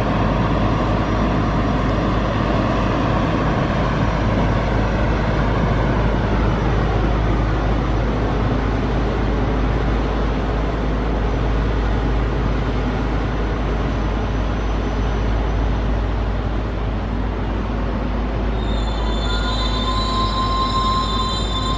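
A trackwork train of yellow on-track maintenance machines rolls slowly past, with a steady low rumble of running gear and diesel engines. Near the end, high-pitched wheel squeal starts up as the wheels work through the curves.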